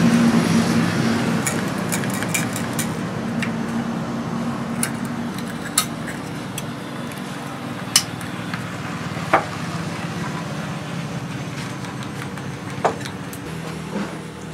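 A motor vehicle's engine running, a steady low hum that slowly fades, with a few sharp clicks of a stick tapping against a small cup as a liquid is stirred.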